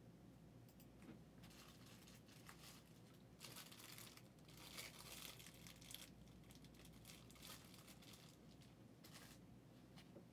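Faint crinkling and rustling in several short spells, over a low steady background hum.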